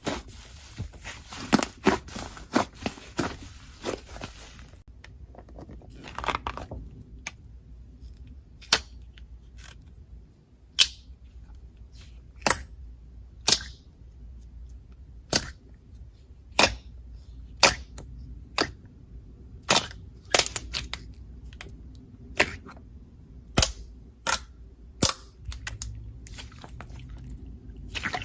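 Slime being pressed and folded by hand with clay worked into it, giving sharp pops and clicks as trapped air bursts. The pops come thick and fast for the first few seconds, then singly, about one a second.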